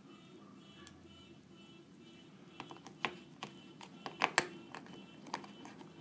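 Light plastic clicks and taps from fingers handling the clear plastic accessory tray in an iPhone box. A scattered run of them starts about halfway through, over faint background music.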